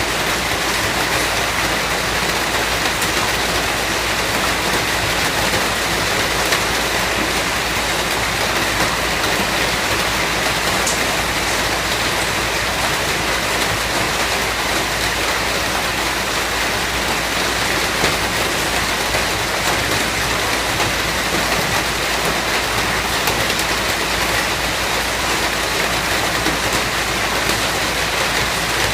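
Steady rain falling, a dense even hiss with many small drop patters.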